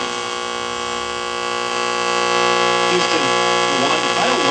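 1946 Firestone Air Chief tube radio tuned between AM stations: a steady buzzing hum with many overtones comes through its loudspeaker and grows louder. About three seconds in, a station's voice starts to come through over the hum.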